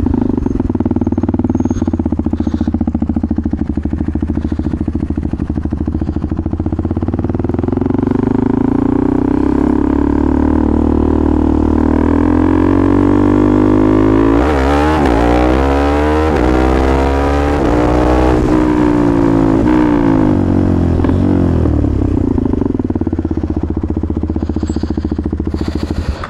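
KTM Duke 390's single-cylinder engine with an aftermarket exhaust, heard from the saddle as it runs at low speed in low gear. About halfway through the pitch rises, then swings up and down several times with quick throttle changes, and settles as the bike slows to a stop near the end.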